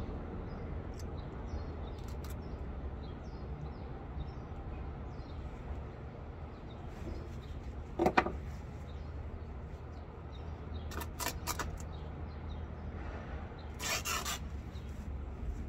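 Old upholstery fabric and stuffing being pulled and torn off an antique wooden chair frame by hand. There is a sharp snap about eight seconds in, a few quick clicks a few seconds later, and a longer rasping tear near the end. Birds chirp faintly in the background.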